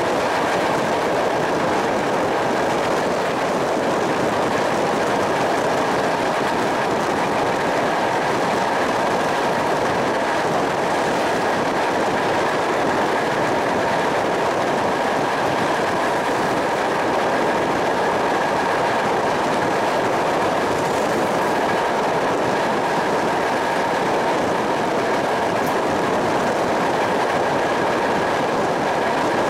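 A passenger train running along the track, heard from an open carriage window: a steady loud rumble of wheels on rail mixed with rushing air. A faint, steady high tone runs through it.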